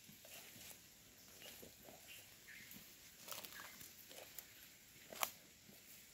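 Faint footsteps and rustling as someone walks through leafy forest undergrowth, with scattered soft ticks and a sharper snap about five seconds in.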